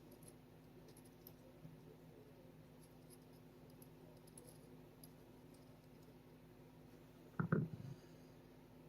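Faint small clicks and scratches of a punch and small pistol parts being handled while a sear spring is worked into place, with one brief louder sound near the end.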